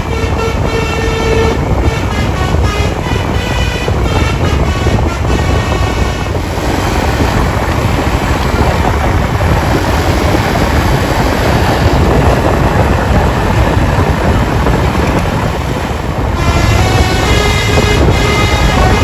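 A tour bus's telolet musical horn plays its multi-note tune for about the first six seconds. A loud, even rushing noise without tones follows, and the horn notes start again near the end.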